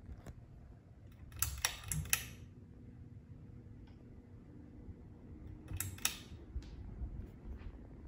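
Hampton Bay Huntington III ceiling fan running with a steady low hum. Two short bursts of sharp clicks, about a second and a half in and again about six seconds in, are the loudest sounds.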